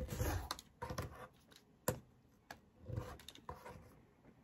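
Rotary cutter rolling through quilting cotton along the edge of an acrylic ruler on a cutting mat: a short rasping cut at the start. A few light clicks and taps follow as the ruler, cutter and trimmed scraps are handled.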